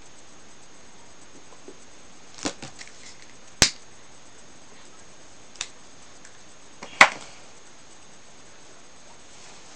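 A man puffing on a tobacco pipe: several short, sharp lip pops and clicks at the pipe stem, a few seconds apart, over a faint steady hiss.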